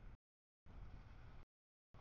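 Faint low rumble of passing road traffic. The sound cuts out to dead silence twice for about half a second each time, as the audio drops out in chunks.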